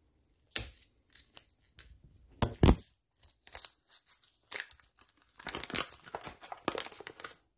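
Foil-lined vacuum-sealed coffee brick being torn and cut open, in short crinkly tearing strokes that turn into a denser run of crinkling near the end. A single loud knock a little under three seconds in.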